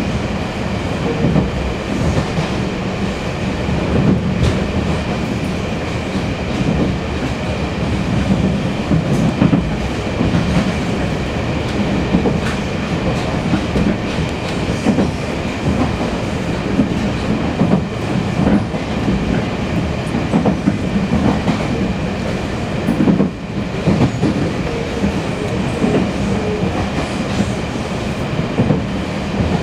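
Inside a Taiwan Railways Fu-Hsing class passenger car under way: a steady rumble of wheels on the rails, broken by irregular clickety-clack knocks over a faint steady high-pitched hum.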